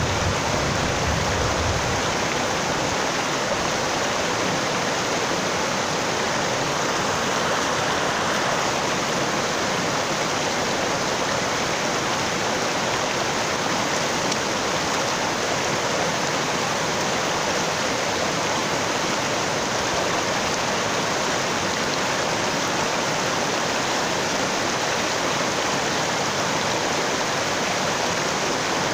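Shallow mountain stream rushing and splashing over boulders and stones, a steady even rush. A low rumble under it fades out about two seconds in.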